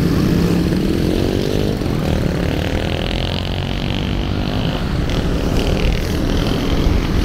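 Small motorcycles pulling away, their engines rising in pitch twice as they speed up, over steady street traffic, with a car driving past close by.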